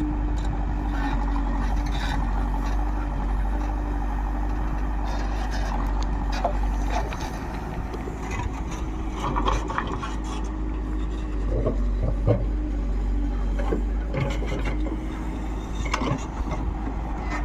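Diesel engine of a backhoe loader running steadily, with a few knocks and clanks from the machine working.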